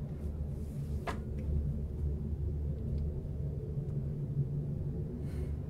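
A low, steady droning rumble of several held low tones, with a faint click about a second in.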